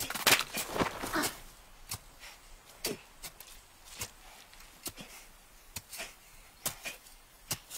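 Hands digging and scraping in loose earth: a string of short, sharp scrapes and knocks, roughly one every half second to a second, busiest and loudest in the first second.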